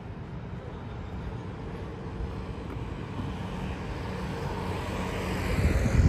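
Vehicle noise, a steady rumble and rush that grows gradually louder and is loudest near the end.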